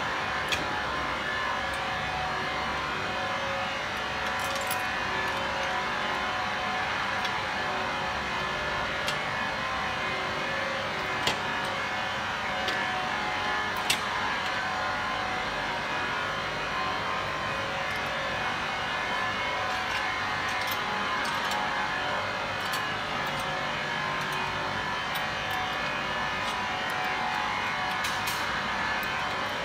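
Steady mechanical hum with scattered sharp metallic clinks as swing-bolt clamps on a stainless steel vessel lid are handled, the loudest a little before the middle.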